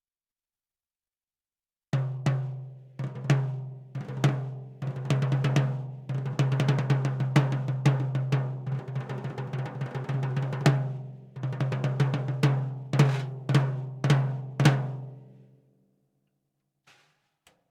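NOAH DC 14x6-inch snare drum being played: a few single strokes about a second apart, then a fast run of strokes and a roll lasting several seconds, then more accented hits. A low ring sounds under every stroke and fades out after the last hit, followed by two faint taps.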